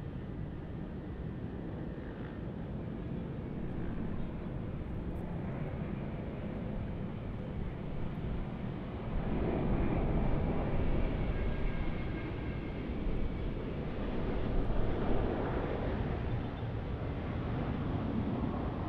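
Airbus A330-900's Rolls-Royce Trent 7000 turbofans on final approach: a steady jet rumble that grows louder about halfway through as the airliner comes closer, with a faint high whine.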